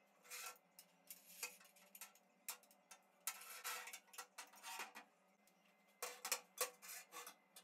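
Faint metal clinks, knocks and scrapes as a steel jaw piece of a homemade bar clamp is slid along a square steel tube and the steel bars are handled and set down on a steel workbench. The clatter comes in scattered bursts, busiest about three to four seconds in and again about six to seven seconds in.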